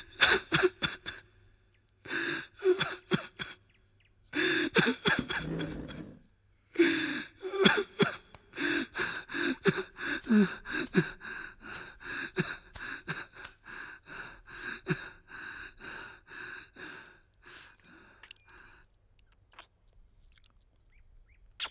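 A man's gasping, sobbing breaths in quick uneven bursts, several a second at their busiest, dying away in the last few seconds.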